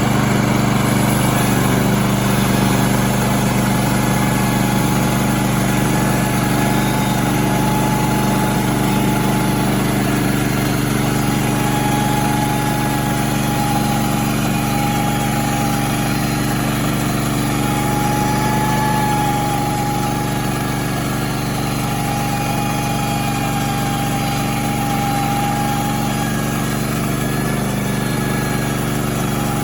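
Woodland Mills band sawmill's small gasoline engine running steadily under throttle while the mill saws a board from a log, with a thin whine that comes and goes over the engine note.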